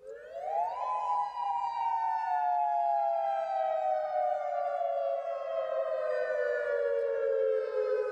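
Siren wailing: its pitch climbs over about the first second, then slides slowly and steadily down through the rest, as two close tones sounding together.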